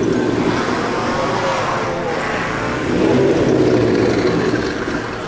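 A car engine revving, its pitch rising and falling, loudest about three seconds in.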